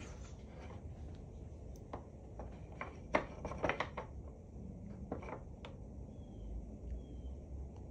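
Light clicks and taps of plastic Duplo bricks and a glue bottle being handled while glue is squeezed onto a brick, bunched about three to four seconds in and again around five seconds in.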